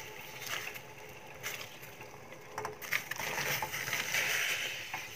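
Sliced lotus stem pieces tipped from a glass bowl into a steel pot of rapidly boiling water: a few light clicks, then a splashing hiss of bubbling water about three seconds in that lasts nearly two seconds.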